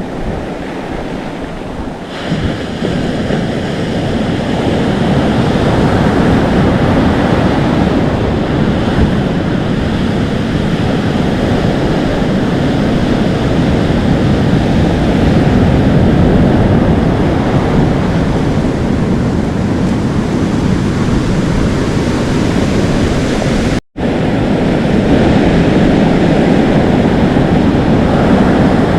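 Atlantic Ocean surf: waves breaking and foam washing and sizzling up the shore in a steady rush, with wind blowing across the microphone. The surf swells about two seconds in, and the sound drops out for an instant near the end.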